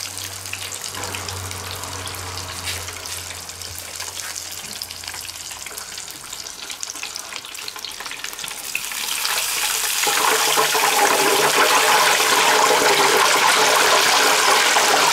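Hot oil in an electric deep fryer bubbling and sizzling around a breaded cordon bleu cutlet. About nine seconds in the sizzling grows much louder and stays loud while the cutlet is lifted out of the oil with tongs.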